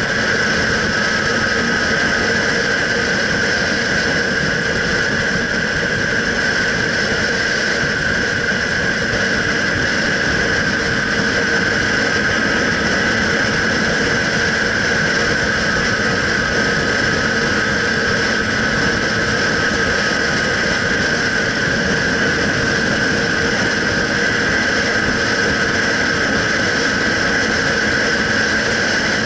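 Motorcycle running at a steady cruising speed, its engine note holding even, with the steady rush of wind and road noise over the microphone.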